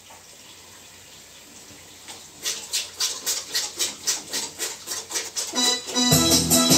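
Faint steady hiss, then a percussion beat of about four sharp hits a second starting about two and a half seconds in and growing louder. A backing music track with bass and pitched instruments comes in about six seconds in.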